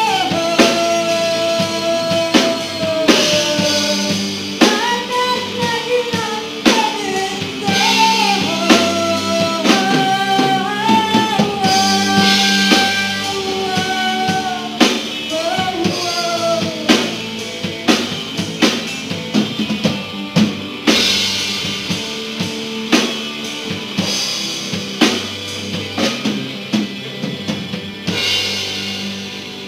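Live rock band playing loud: a singer on microphone over electric guitar, bass and drum kit. The vocal line drops out a little past halfway while the band plays on with steady drums, easing off toward the end.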